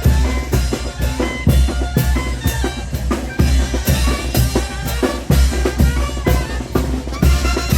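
Chinelo brinco music from a brass band: bass drum, snare and cymbals keep a steady, driving beat under a horn melody.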